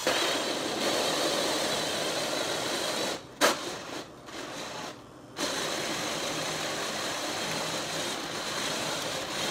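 Power drill with a 1.5-inch bit boring through the cardboard outer shell of a vintage camera. It runs for about three seconds, stops with a sharp click, and starts again about two seconds later, running steadily.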